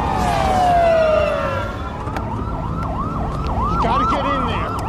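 Police car sirens: a wail falling in pitch over the first second and a half or so, then a fast yelp of about three up-and-down sweeps a second, over a low rumble.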